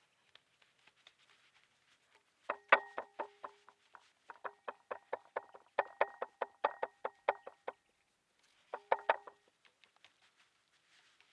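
Three runs of quick knocks, about four to five a second, each knock ringing briefly on the same note. The loudest comes about two and a half seconds in.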